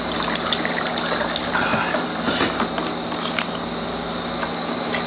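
Close-miked crunching and chewing of deep-fried chicharong bulaklak (crispy pork mesentery), a string of sharp, crackly crunches, over a steady electrical hum.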